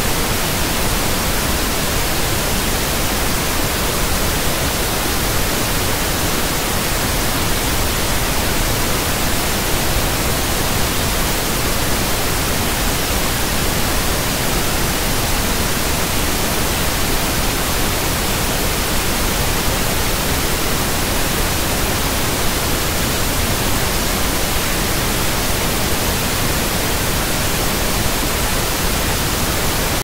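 Steady white noise: an even hiss spread across all pitches, unchanging throughout.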